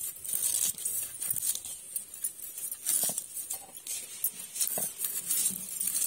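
Snakehead fish being scaled against a fixed curved cutting blade (boti): repeated, irregular scraping strokes as the scales are stripped off.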